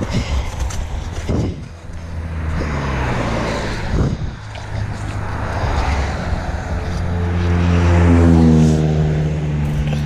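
Road traffic on a two-lane highway: several cars passing one after another, each swelling and fading as a rush, over a steady low engine hum. The loudest pass, with a deeper engine note, comes about eight seconds in.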